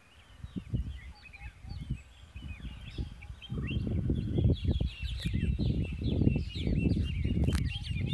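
Many small birds chirping and twittering in rapid, overlapping calls. Gusty wind buffets the microphone with a low rumble that grows much stronger about three and a half seconds in.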